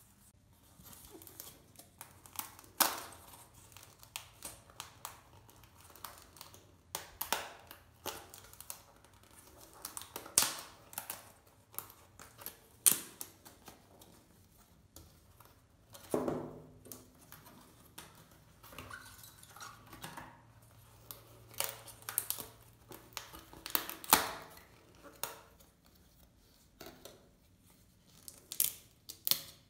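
Foam-board puzzle pieces being pressed out of their printed sheets by hand: irregular sharp snaps and clicks, with the boards scraping and rustling in between.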